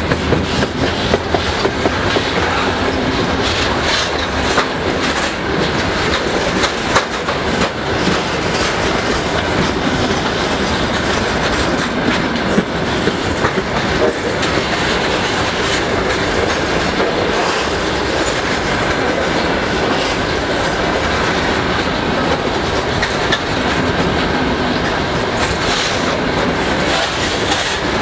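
Freight train of covered grain hopper wagons rolling past close by at speed: a steady heavy rumble of steel wheels on the rails with a continual irregular clatter of clicks as the wheelsets pass.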